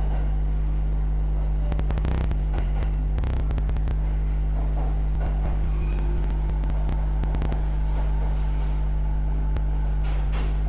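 Inside an E217-series electric commuter train pulling into an underground station platform. A steady low running hum fills the car, with the wheels clacking over rail joints in short bursts about two and three seconds in and again near the end.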